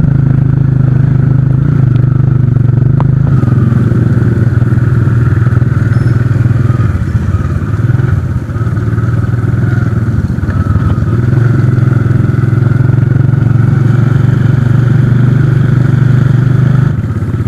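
Small motorcycle engine running steadily while riding, heard muffled through the camera's waterproof case, easing briefly about halfway through before settling back.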